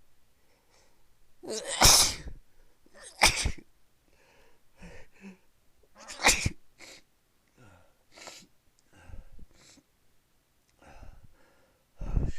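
A person sneezing in a fit that won't stop: three loud sneezes about 2, 3 and 6 seconds in, with quieter short breaths between them and another loud burst near the end.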